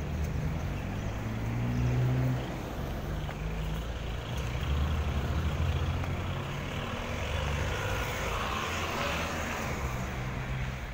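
Road traffic: motor vehicle engines running close by, with a low engine hum that shifts in pitch, over a steady traffic noise that swells for a few seconds near the end.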